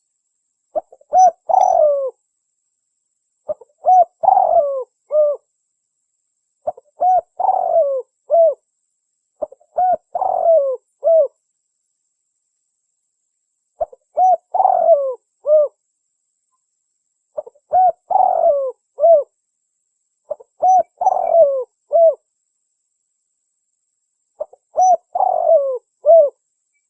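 Spotted dove (derkuku) cooing, a lure-call recording: eight phrases of several low coos each, one every three seconds or so, with a longer pause in the middle.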